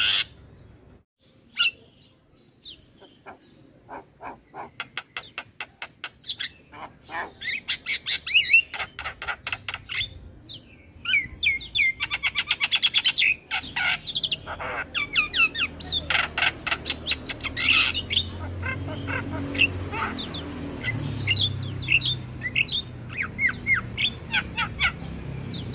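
Javan myna (jalak kebo) singing a chattering song: fast runs of clicking notes mixed with harsh squawks and short whistled notes.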